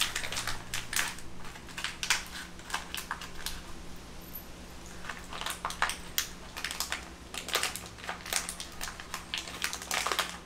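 A small bag of cart-assembly hardware crinkling and rustling in the hands as it is opened and the parts are taken out, in an irregular string of short crackles and clicks.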